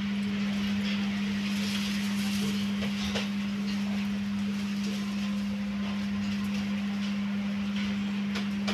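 A steady low hum on a single unchanging tone, over a faint background hiss with a few faint clicks.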